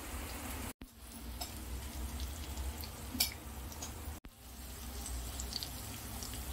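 Rahu fish steaks sizzling in shallow oil in a nonstick frying pan, a steady crackle with scattered ticks and one sharper pop a little past the middle. The sound cuts out for an instant twice.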